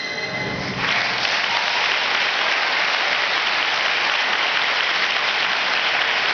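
The last notes of the music fade, and about a second in audience applause breaks out and carries on steadily.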